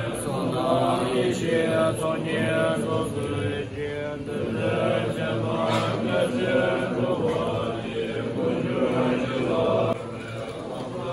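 A group of Tibetan Buddhist monks chanting prayers together in unison, many low male voices holding steady pitches. The sound drops a little near the end.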